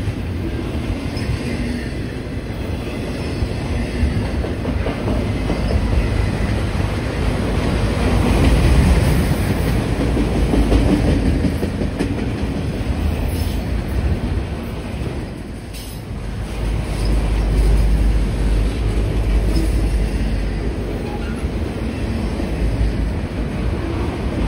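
Freight train cars, double-stack well cars and then autoracks, rolling past close by: a steady rumble of steel wheels on rail that swells and eases, with a few clacks over the rail joints.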